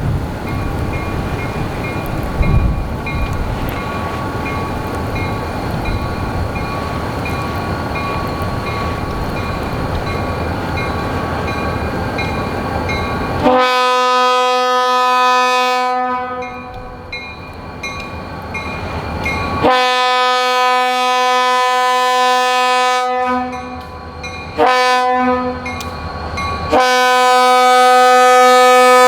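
Guilford EMD GP40 locomotive passing through deep snow: a noisy wash of train and wind noise with a bell ringing steadily. About halfway in, its air horn sounds the grade-crossing pattern: two long blasts, a short one and a final long one, the last the loudest.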